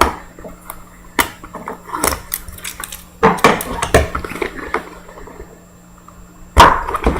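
Scattered clicks, crinkles and rustles of plastic shrink wrap and a cardboard trading-card box being picked at and torn open by hand, without a blade.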